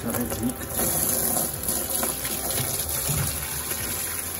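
Tap water running in a steady stream into a plastic bucket of water, splashing over hands held under the flow.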